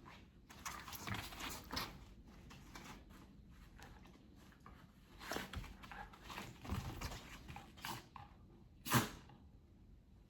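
A dog and a cat play-fighting: irregular bursts of scuffling, rustling and clicks as they tussle, with one short, sharp, louder sound about nine seconds in.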